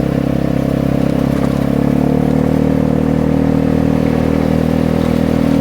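Vespa GTS 250 scooter's single-cylinder four-stroke engine and exhaust running at a steady cruise, the engine note rising slightly in the first couple of seconds and then holding level.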